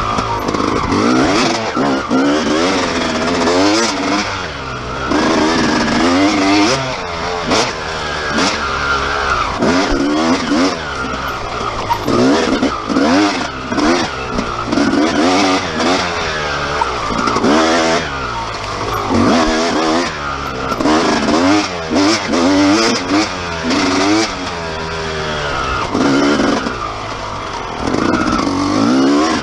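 Dirt bike engine revving up and down over and over, its pitch climbing in short pulls and dropping each time the throttle is shut, with scattered knocks from the bike over rough trail.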